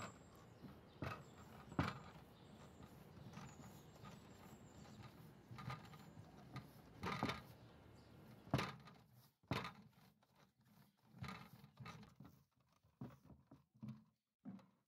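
Scattered, irregular knocks and thuds over a faint steady background hiss; the hiss drops away about eight and a half seconds in, leaving sparser, quieter clicks and taps.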